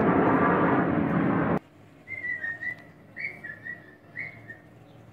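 A formation of military aircraft passing overhead with a loud, steady roar that cuts off abruptly about a second and a half in. Then quiet, with three short groups of high whistled notes.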